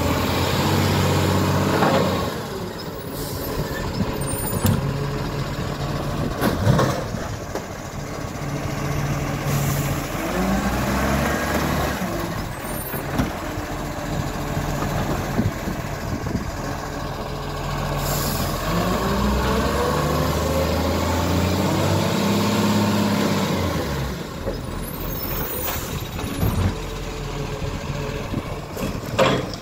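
Side-loading garbage truck working a kerbside bin collection: the engine revs up and falls back several times as it drives the hydraulic arm that lifts and tips the wheelie bins. Sharp knocks from the bins and arm and short air-brake hisses come in between.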